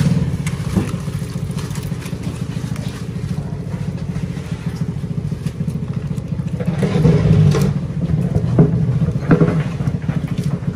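A motor engine running steadily at idle, a low even rumble, with wet slaps and knocks of fish being handled in a box, loudest about seven to nine and a half seconds in.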